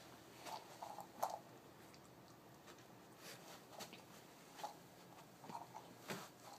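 Puppy mouthing and nudging a rubber Kong toy stuffed with kibble, working to get the food out: a faint, irregular scatter of soft clicks and scrapes.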